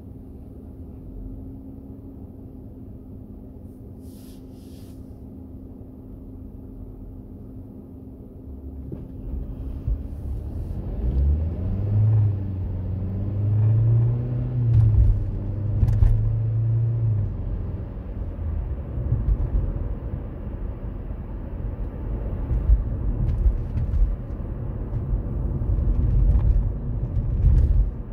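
A road vehicle heard from close by: a steady hum for the first nine seconds or so, then the vehicle moves off. The low rumble grows loud, an engine note rises, holds and falls away, and steady low road rumble follows while it travels.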